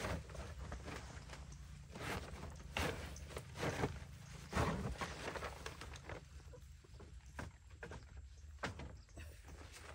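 Irregular knocks and rustling, with a few louder thuds near the middle.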